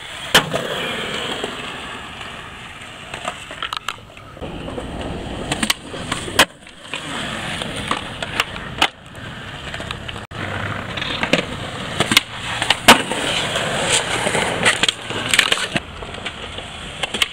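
Skateboard wheels rolling on concrete, broken by sharp clacks as the tail pops and the board slaps down on the ground during stair tricks. The sound breaks off abruptly twice where one attempt gives way to the next.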